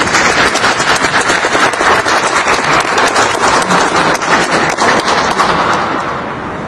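Audience applauding, starting suddenly and dying down near the end.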